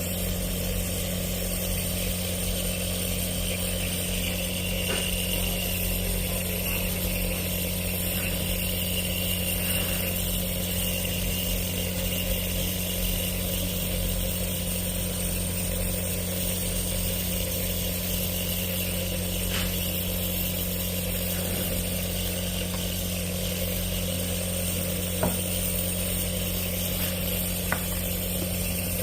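Compressor nebulizer running: a steady electric buzz, with a few faint clicks along the way.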